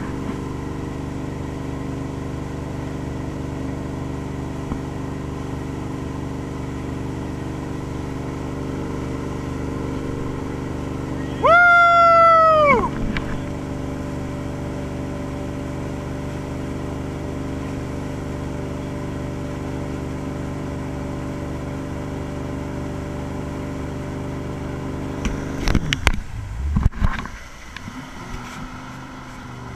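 Towboat's inboard engine running steadily under way, with water rushing. About twelve seconds in, a loud, high whoop lasts about a second and a half. Near the end come a few knocks and buffets, after which it is quieter.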